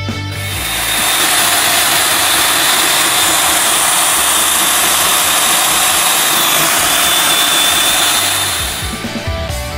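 Stand-mounted electric diamond core drill running while it cuts into a concrete floor: a steady high motor whine over a loud grinding hiss. It builds up about half a second in and dies away near the end.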